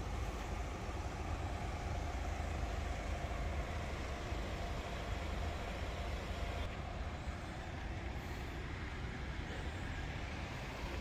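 Queue of cars idling and edging forward: a steady low rumble of engines and traffic.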